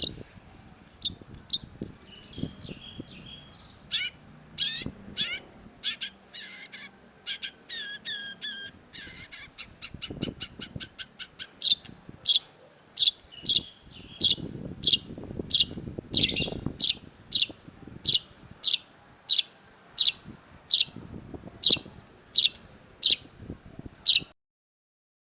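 Long-tailed shrike singing: first a varied run of short sweeping notes, then from about halfway a loud, evenly spaced series of short notes at about two a second, which stops abruptly near the end.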